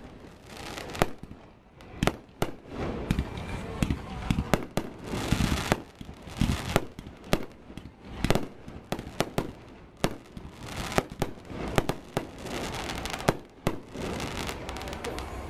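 Aerial fireworks shells bursting overhead: a long run of sharp bangs, sometimes several close together, with a haze of rumble and noise between them.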